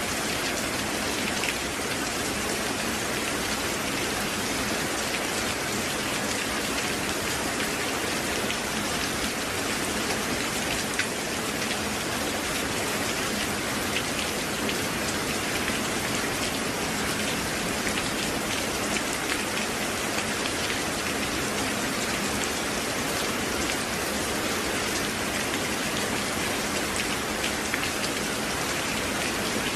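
Steady rain falling: an even hiss with scattered sharper drops.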